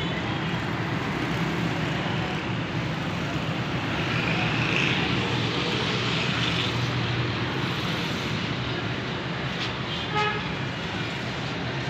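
Steady rushing street noise of traffic and wind in a storm, with a vehicle horn sounding briefly near the end.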